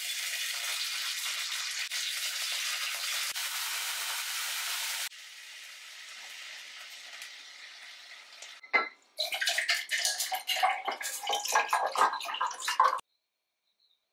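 Kitchen cooking sounds in short cuts: a loud steady hiss for about five seconds, a quieter hiss, then a click and about four seconds of crackling sizzle from food frying in a pan, which stops abruptly.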